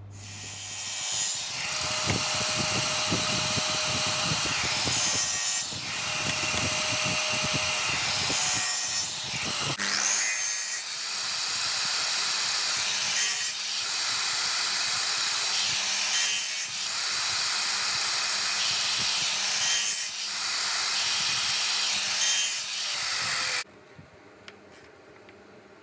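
Table saw running and crosscutting small hardwood strips into short segments on a crosscut sled, the sound changing with each pass about every three to four seconds; it stops abruptly near the end.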